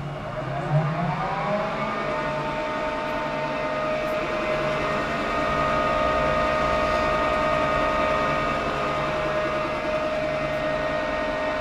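LeBlond Regal servo shift lathe's spindle and geared headstock spinning up over about two seconds, then running steady with a gear whine, set to 625 rpm.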